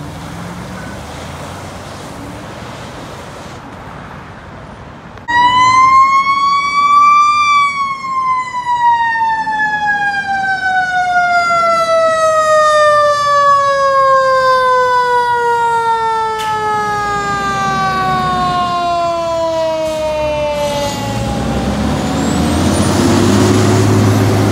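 Traffic noise, then about five seconds in a fire engine's siren cuts in loud, rises in pitch for a couple of seconds and then slowly winds down over about fifteen seconds. Near the end a truck engine revs up as a fire engine pulls through.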